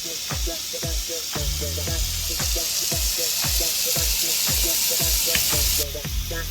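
Water running from a KOHLER Graze semi-professional kitchen faucet as a steady hiss. It grows louder partway through and stops suddenly about six seconds in. Background music with a steady beat plays throughout.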